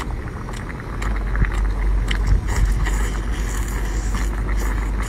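A low, steady rumble, with small clicks and eating noises on top.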